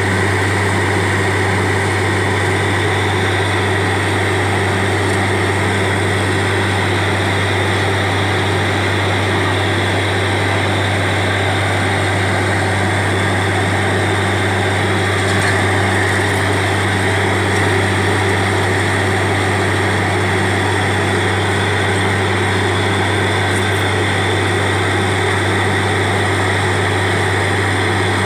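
Truck-mounted borewell drilling rig running steadily while drilling, a loud unchanging machine drone with a deep hum, as air-flushed muddy water and cuttings gush out of the borehole.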